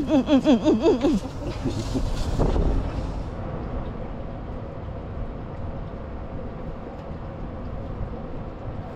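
A man's voice for about the first second, then a steady low rumble with a faint hum through the rest, like an engine running.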